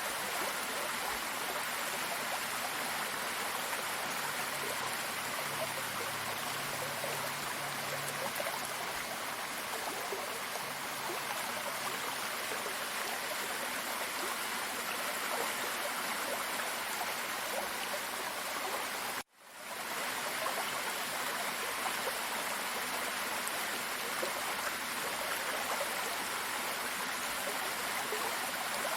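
Waterfall and running stream water, a steady even rush of water noise. About two-thirds of the way through it cuts out for a moment and fades back in.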